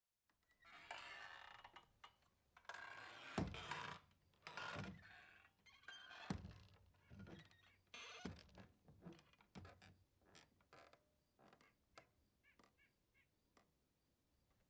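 Swinging saloon doors: the hinges creak and squeal as the doors swing back and forth, with heavy thunks as they knock, the swings dying down to small clicks and rattles near the end.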